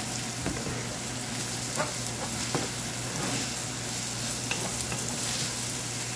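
Chopped red onions frying in hot oil in a stainless-steel frying pan, a steady sizzle, while a wooden spatula stirs them, knocking and scraping against the pan a few times in the first half.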